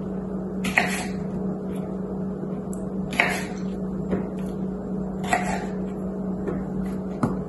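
Kitchen knife cutting orange bell pepper on a bamboo cutting board: four separate knocks about two seconds apart, over a steady low hum.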